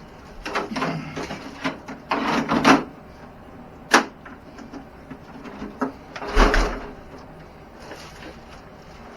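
Handling noises from unboxing an RC truck: a few short scraping, rustling bursts, a sharp click about four seconds in, and a burst with a heavy thump a little past six seconds.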